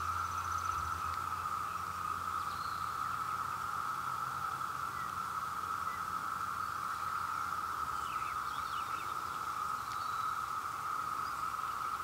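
Chorus of periodical cicadas: many males singing together as one steady, unbroken drone at a single pitch.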